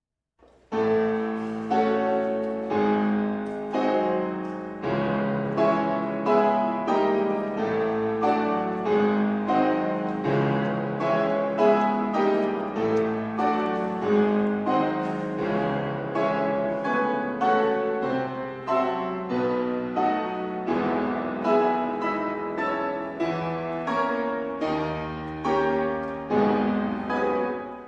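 Solo piano music, instrumental with no singing, with notes and chords struck about once a second; it fades out near the end.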